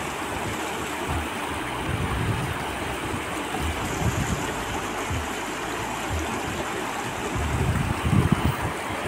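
Shallow mountain river running steadily over rocks and riffles. Irregular low rumbles come in near the end.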